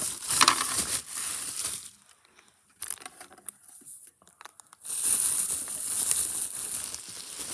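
Fire alarm packaging being opened and handled: crinkling and rustling for about two seconds, a quieter stretch of light clicks and taps, then louder crinkling again from about five seconds in.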